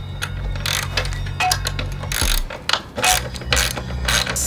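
Socket ratchet clicking through a series of short back-and-forth strokes as a fastener is undone.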